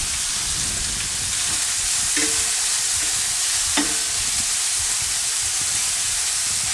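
Chopped red onions frying in oil in a stainless steel pan, giving a steady sizzle. Two brief knocks come about two and four seconds in.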